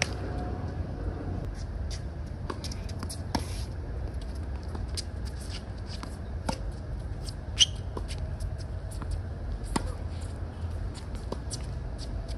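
Tennis rally: the sharp pops of racquets striking the ball and the ball bouncing on the hard court, the loudest about halfway through, over a steady low rumble.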